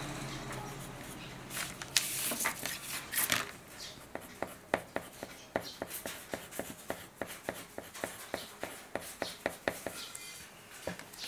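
Green coloured pencil scratching on drawing paper in quick short strokes, about three or four a second, with a few longer, louder scrapes a couple of seconds in.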